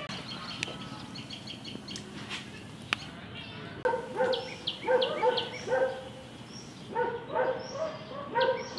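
Short pitched animal calls in quick runs, starting about four seconds in and again about seven seconds in, with faint high chirping during the first few seconds.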